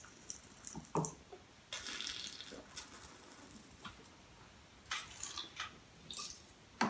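Red wine being spat into a jug used as a spittoon: a few short noisy spurts of liquid and mouth sounds, with a sharp knock near the end.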